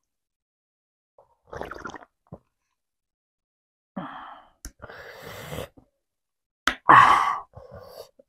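A person drinking from a plastic mug: short breathy exhales and gasps between sips, with a couple of small clicks. The loudest is a gasp a little before seven seconds in.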